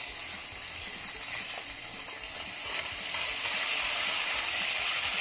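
Ginger-garlic paste sizzling in hot oil in a pan, the sizzle growing louder about three seconds in.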